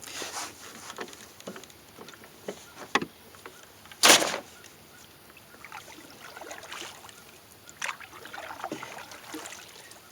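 A paddle dipping and pulling through calm water beside a small sailing dinghy, with drips and light splashes between strokes. One louder stroke comes about four seconds in.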